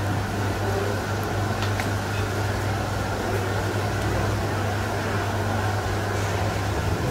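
Steady low mechanical hum over a bed of general background noise, with a few faint ticks.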